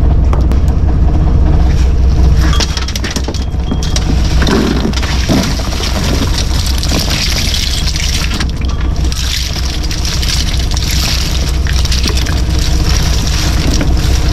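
A net's catch of shells, starfish and fish cascading onto a boat's rubber-matted deck, a dense rattling and crunching of shells that builds from a few seconds in, over the steady hum of the boat's engine.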